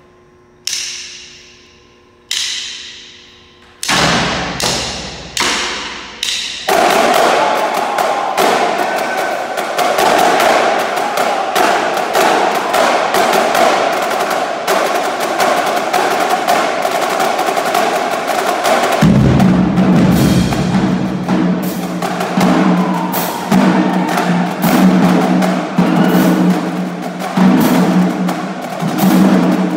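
High school marching drumline (snare drums, tenor drums, tuned bass drums and crash cymbals) playing a cadence, echoing in a gymnasium. A few separate ensemble hits ring out first, then about seven seconds in the full line starts playing continuously, and about 19 seconds in lower drum notes come in under the snares.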